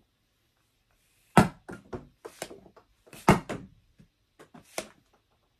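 Nerf air pump gun firing: two sharp pops about two seconds apart, each followed by a few lighter knocks and taps.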